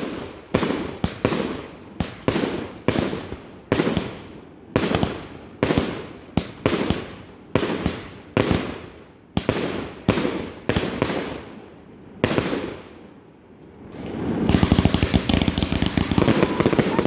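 Fireworks going off: a steady string of sharp bangs, about one or two a second, each followed by a trailing rumble and crackle. After a short lull near the end comes a dense run of rapid, overlapping bangs.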